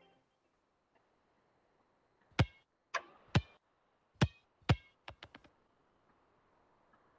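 Animated logo sound effects: a bouncing ball, five separate thumps that each drop quickly in pitch, then a quick run of four small ticks as it settles.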